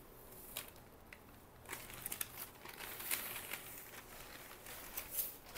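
Crisp rustling and crinkling of a zari-bordered saree as it is lifted and unfolded by hand. There are a few soft rustles at first, then a denser run of them from about two seconds in.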